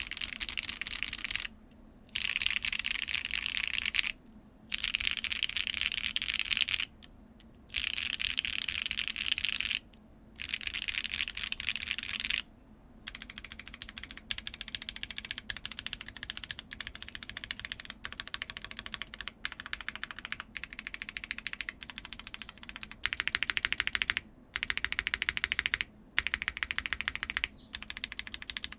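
Typing on a Neo 75Cu mechanical keyboard fitted with factory-lubed HMX Sonja linear switches, the keystrokes clacking as they bottom out. The first half comes in fast two-second bursts with short pauses between them. From about halfway the typing is quieter and more continuous, with a few louder runs near the end.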